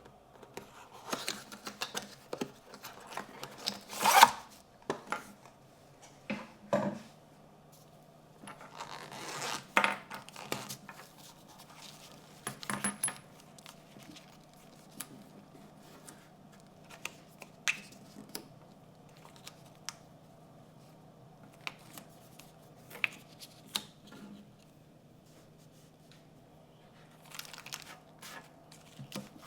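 Unboxing sounds of a pocket knife: box and wrapping rustling and scraping, with scattered small clicks and taps. The loudest rustle comes about four seconds in, another around ten seconds.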